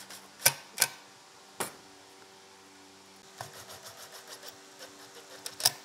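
Power screwdriver driving small screws into a cast aluminium circular-saw housing: a few sharp metallic clicks, a quick run of small even ticks for about a second in the middle, and two loud clicks near the end.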